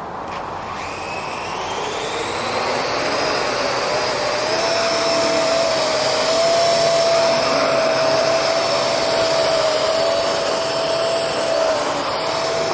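Parrot AR.Drone quadcopter's rotors spinning up for take-off with a rising whine, then holding a steady high whine. Weighed down by its body and prototype pontoons, it is struggling to lift.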